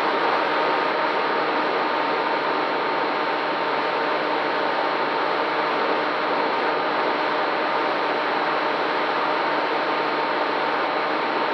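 FPV quadcopter's brushless motors and propellers running at a steady throttle: a constant rushing hum with a fixed whine in it.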